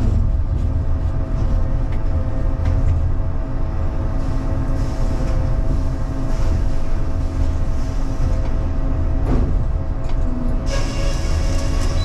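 Sawmill head rig and Cleerman log carriage running, a steady low rumble with machinery hum. A bright hiss comes in sharply near the end, which fits the head saw starting its cut into the log.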